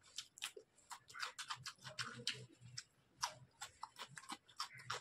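Close-miked eating: crisp crunching bites of raw cucumber and wet chewing and mouth clicks, an irregular run of sharp ticks.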